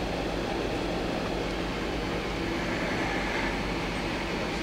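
Hyundai-WIA L400LMC CNC lathe spindle turning its 15-inch 3-jaw chuck at 150 RPM in low range: a steady mechanical hum with low droning tones.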